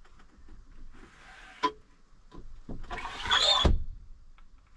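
A latch clicks, then a panel in the camper van slides with a scraping rattle for under a second and stops with a thump.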